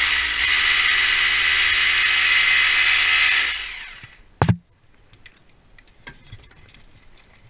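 Cordless drill running at steady speed for about three and a half seconds, then winding down to a stop, followed by a single sharp knock and a few faint clicks of handled gear.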